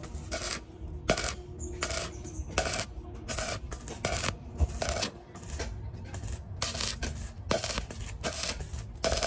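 Hand work on galvanized sheet metal: short metallic strokes, clinking and rasping, repeated unevenly about one and a half to two times a second.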